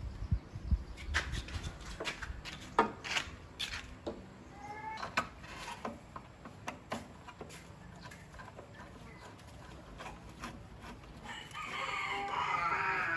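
A rooster crowing once near the end, a call of about two seconds, after a scatter of sharp clicks and knocks.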